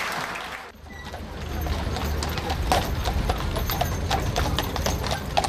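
Iron-shod hooves of a team of heavy draft horses clip-clopping on a paved street as they pull a carriage: an uneven run of many sharp hoofbeats over a low rumble.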